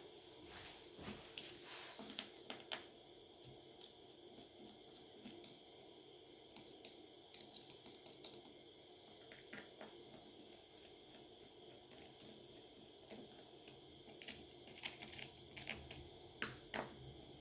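Faint, scattered small clicks and ticks of a precision screwdriver working out the screws of a Samsung Galaxy S9's internal frame.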